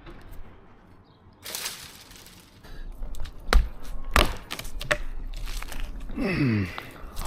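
Dead ash wood cracking and breaking, with a rush of noise and then several sharp knocks about a second apart. A short sound sliding down in pitch follows near the end.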